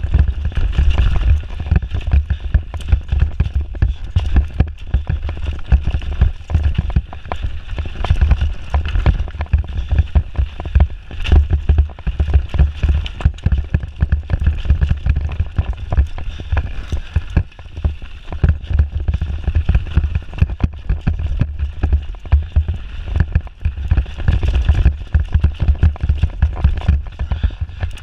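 Mountain bike riding fast down a rough dirt forest trail, heard as steady clatter and rattle from the bike over the ground, under a heavy low rumble of wind buffeting the camera microphone.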